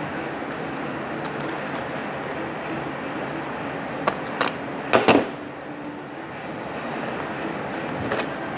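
Utility knife cutting open the seal of a small cardboard diecast-model box: a few sharp clicks and taps from the knife and box, the loudest cluster about five seconds in, over a steady background hiss.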